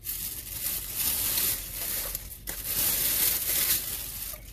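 Food packaging crinkling and rustling as it is handled, uneven, with short pauses about halfway and near the end.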